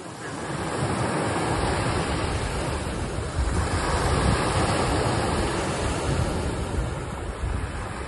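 Steady rushing noise of surf, building over the first second and swelling a little about halfway through, with wind buffeting the microphone.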